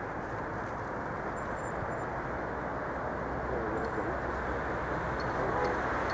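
Steady outdoor background rumble, like distant town traffic, slowly growing a little louder, with a few faint wavering tones a little past the middle.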